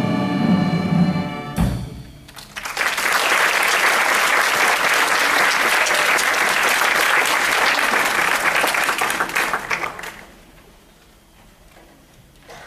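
A string orchestra of violins, cellos and double basses sounds its final chord, which cuts off sharply about a second and a half in. After a brief gap the audience applauds for about seven seconds, and the applause then dies away.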